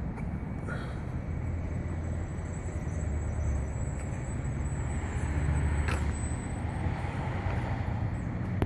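2015 Chevrolet Corvette's V8 idling steadily through its exhaust, a low, even rumble.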